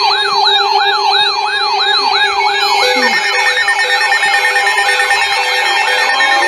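Electronic siren in a fast yelp, sweeping up and down about three times a second over steady held tones. A second, pulsing tone pattern joins about three seconds in.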